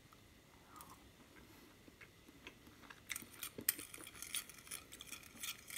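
Metal chopsticks clicking and scraping against a small ceramic dipping bowl while dipping boiled chicken into an oil sauce. A few faint taps at first, then a quick run of light clinks from about three seconds in.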